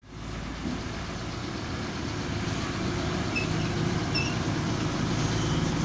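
Heavy trucks' engines running as they approach along the road, a steady low drone that grows slowly louder.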